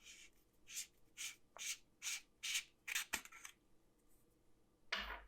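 Tail cap of a flashlight being unscrewed: the threads give a run of about eight short, faint rasping rubs, one with each twist, followed by a small knock and, near the end, a soft thump.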